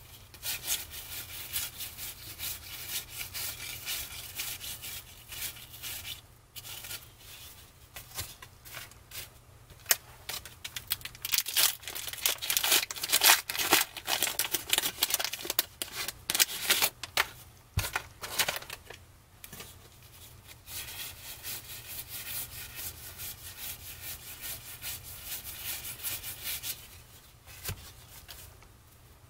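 Baseball cards being thumbed through by hand, a quick run of card-stock flicks and rubs. Around the middle, a wax pack's wrapper is torn open and crinkled; this is the loudest stretch.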